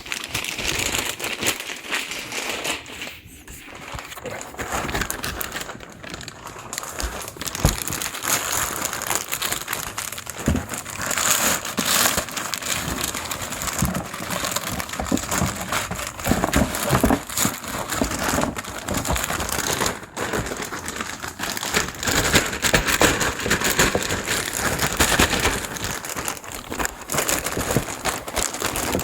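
Packing material crinkling and crackling as a new fender flare is unwrapped by hand, with many small irregular rustles and crackles throughout.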